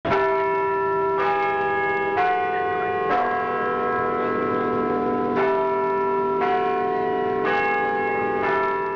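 Church bells ringing, a bell struck about once a second at changing pitches, each ringing on under the next, with a pause of about two seconds midway.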